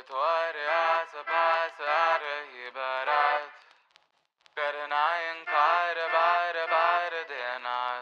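Music: a solo sung melody of short, quick notes in two phrases, with a pause of about a second midway, clean and free of any background noise.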